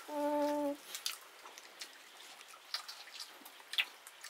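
A short steady pitched tone lasting under a second, then soft scattered clicks and wet smacks of rice and curry being eaten by hand, with one sharper click near the end.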